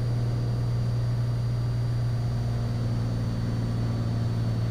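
Cessna 182 Skylane's piston engine and propeller droning steadily in cruise, heard inside the cabin.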